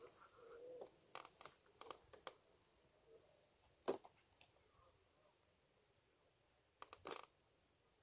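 Near silence, broken by a few faint clicks and rustles of the angler handling his fishing tackle and clothing. The loudest single click comes about four seconds in, and a quick cluster of clicks a little after seven seconds.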